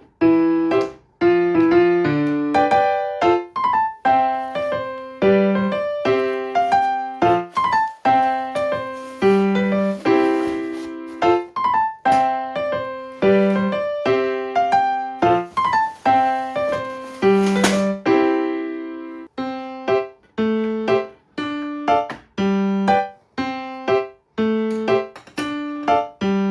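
Background music: piano (or electric piano) playing a steady melody of struck notes, each ringing and fading.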